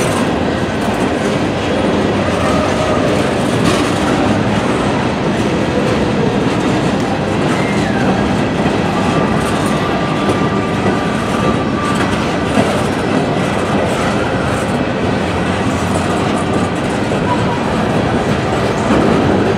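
Empty Norfolk Southern coal hopper cars rolling past at close range: a loud, steady rumble and clatter of steel wheels on the rails. A thin wheel squeal is heard for a few seconds about halfway through.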